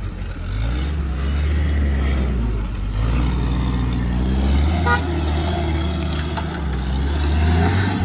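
Off-road 4x4 engine running under load as it climbs a rough dirt track, a steady low drone, with a short beep about five seconds in.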